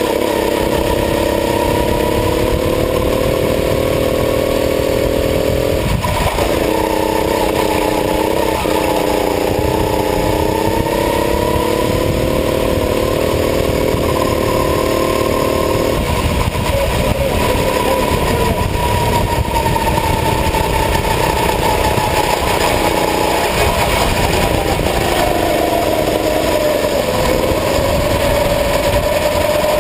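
Go-kart engine running at speed. Its pitch climbs gradually, then drops sharply about six seconds in and again about sixteen seconds in as the kart lifts off and brakes for corners. A steady rushing noise runs underneath.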